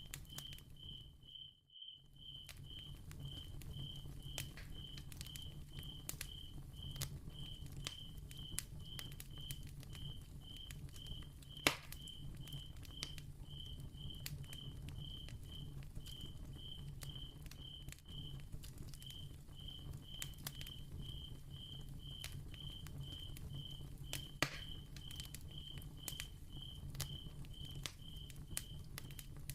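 Soft crackling of a flame, with scattered sharp pops, two of them louder about midway and near the end, over a cricket chirping steadily about twice a second and a low steady hum.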